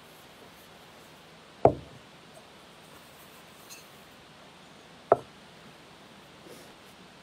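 Two sharp knocks of objects being set down on a table, about three and a half seconds apart, the first with a brief ring, with a few faint handling ticks between them.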